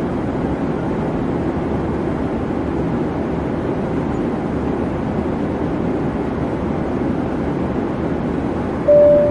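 Steady rumble of an airliner cabin in flight. One clear chime tone sounds near the end.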